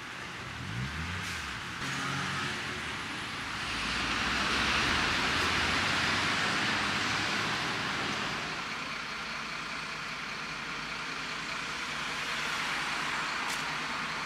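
Street traffic: cars and heavier vehicles passing on the road, a steady rushing of tyres and engines that swells louder about four to eight seconds in as a vehicle goes by.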